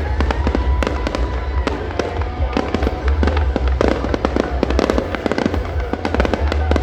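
Fireworks display going off in a dense, continuous barrage: many sharp crackling reports a second over a steady low rumble of booms.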